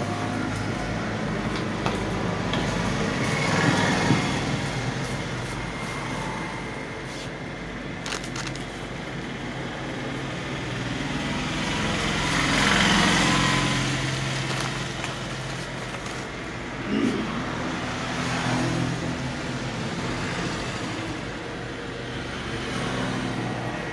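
Road traffic rumbling, swelling and fading three times as vehicles pass.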